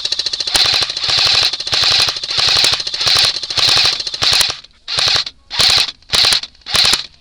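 Airsoft automatic rifle firing on full auto: rapid clicking fire, near-continuous with brief breaks for about four and a half seconds, then short bursts about twice a second.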